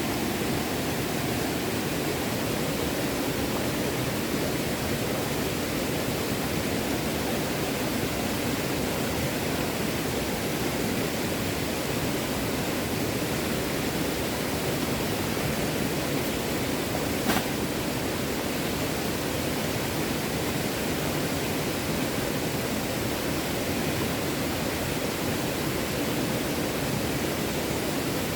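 Small stream running steadily over rocks, a constant rush of water. A single sharp click sounds about two-thirds of the way through.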